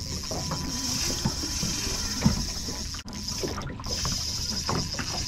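Water slapping against the hull of a small aluminium boat on choppy lake water, a steady wash broken by light scattered knocks.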